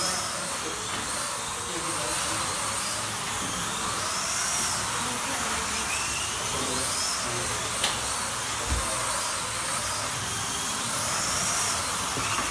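Electric slot cars running on a track: their small motors whine, rising and falling in pitch every couple of seconds as they speed up and brake through the laps, over a steady hiss, with a few sharp clicks.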